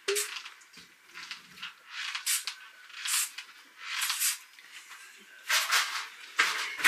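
Sprite being chugged from a plastic bottle without a break: a string of short hissing sounds, about one a second.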